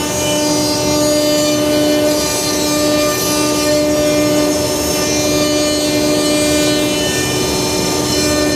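CNC router spindle running with a steady whine while its end mill cuts into a block of wood, the cutting adding a rough hiss over the tone.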